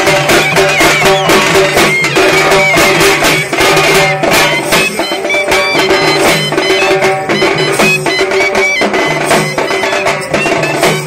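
Loud Maharashtrian lezim folk music: hand drums beaten in a steady rhythm, with metallic jingling strikes, under a reedy wind melody held over a drone.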